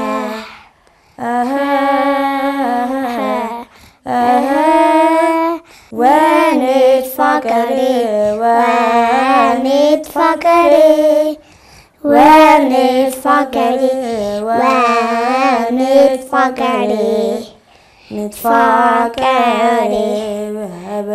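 A child's voice singing an Ethiopian Orthodox children's hymn (mezmur) unaccompanied, in sung phrases of a few seconds with short breaks between them.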